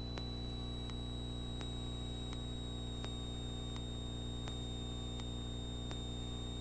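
Steady low hum and hiss of a Cessna 172 Skyhawk in flight, heard through the headset intercom feed, with faint electrical ticks about twice a second and a thin steady high whine.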